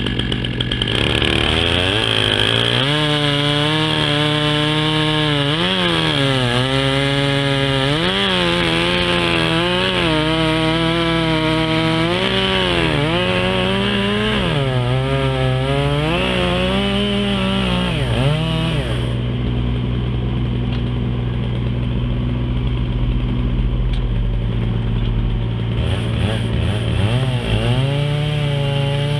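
Chainsaw running loud, its engine pitch repeatedly rising and falling while cutting a black walnut log. Partway through it holds a steady, lower note, then revs up and down again near the end.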